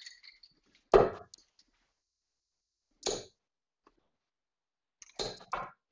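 Darts thudding into a Winmau Blade bristle dartboard as a player throws, each a short sharp hit about two seconds after the last, the first the loudest.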